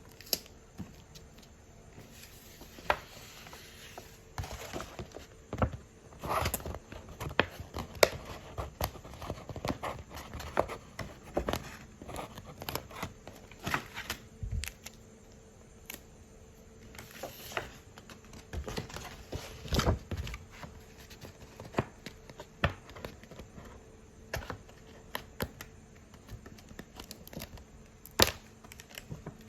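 Hands unwrapping and handling sticker cards: crinkling packaging and paper, with irregular taps and clicks as the cards are handled.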